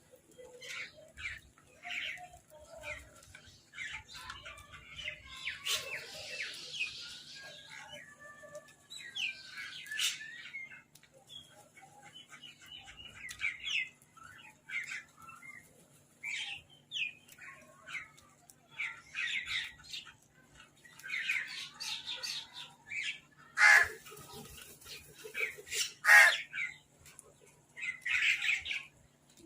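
Crows squabbling over food: many short, harsh caws and squawks one after another, with two louder calls near the end.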